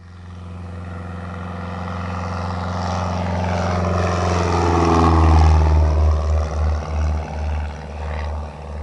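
Propeller airplane flying past: a steady engine drone grows louder, its pitch slides as it passes about five seconds in, then it pulses and eases off.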